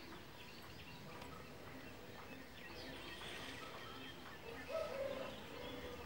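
Small birds chirping faintly, scattered short high calls over a steady background hiss, with one short louder low call about five seconds in.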